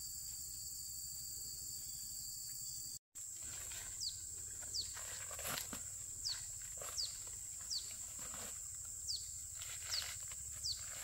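Outdoor countryside ambience: a steady high insect drone, and from about four seconds in a bird repeating a short falling whistled note roughly once a second. The sound drops out for an instant about three seconds in.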